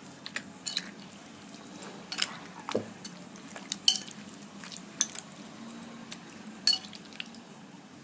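A spoon clinking and tapping against a bowl while spice powder is measured and added to a mutton marinade: a handful of sharp, separate clicks, the loudest about four seconds in.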